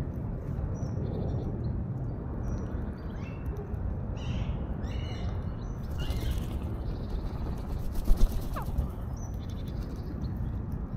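Birds chirping in short high calls over a steady low rumble, with a quick cluster of loud knocks about eight seconds in.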